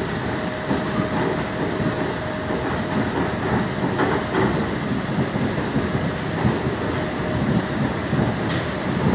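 Running noise of a driverless monorail car heard from inside the cabin: an even rumble from the rubber-tyred train on its beam, with a faint steady whine over it.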